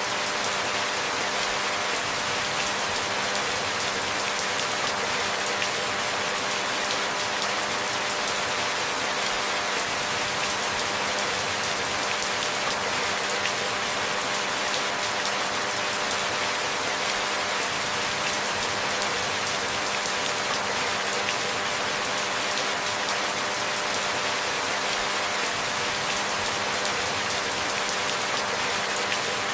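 Steady rain falling, an even hiss of many drops that never changes or breaks, with a faint steady hum beneath it.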